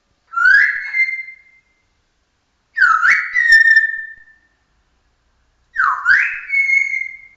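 Pet parrot whistling three times, about three seconds apart: each whistle dips, sweeps up and then holds a steady high note for about a second.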